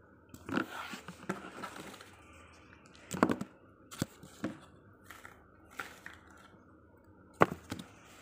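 A handmade cardboard model being handled and opened up: a scraping rustle, then a run of sharp clicks and knocks, the sharpest near the end.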